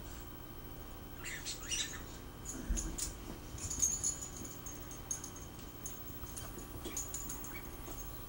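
Two small dogs, a papillon and a miniature pinscher, tussling over a toy hamburger, with faint, scattered high squeaks and light scuffling and bumps.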